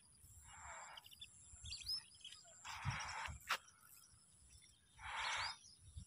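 Faint outdoor ambience with a few small bird chirps, soft hissing puffs about every two and a half seconds, and a single sharp click about three and a half seconds in.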